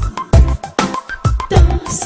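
Music with a heavy, steady beat and a strong bass drum.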